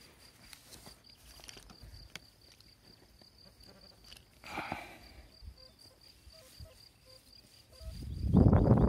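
XP Deus metal detector giving a loud, harsh signal from about eight seconds in as its coil passes over the hole, set off by interference from the coins, shovel and knife lying beside it. Before that, a cricket chirping steadily.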